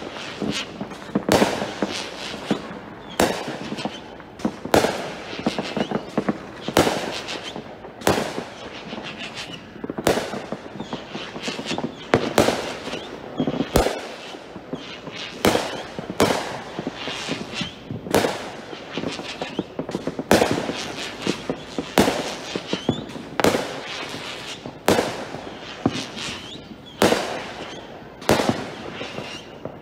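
Aerial fireworks bursting in quick succession, a sharp bang roughly every second.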